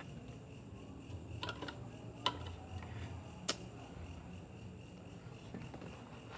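A kitchen knife scraping and clicking against the edge of a Honda Vario 125's radiator fan blades, with three sharp clicks about one and a half, two and a quarter, and three and a half seconds in. The edge is being trimmed so the fan stops rubbing its cover. Crickets chirp steadily in the background.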